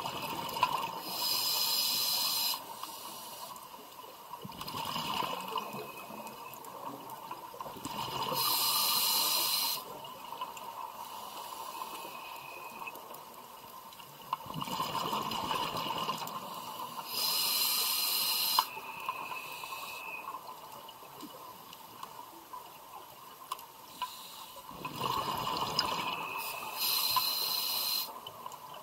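A scuba diver breathing through an open-circuit regulator: four breath cycles, about one every eight to nine seconds. Each has a sharp hiss of air drawn through the regulator and a rush of exhaled bubbles.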